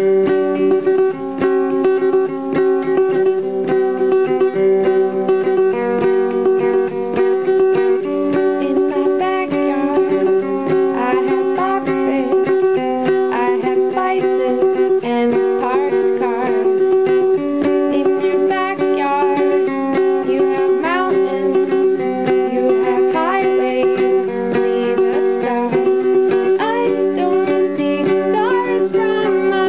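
Music on a plucked string instrument: steady chords with a melody line that slides in pitch over them from about halfway on.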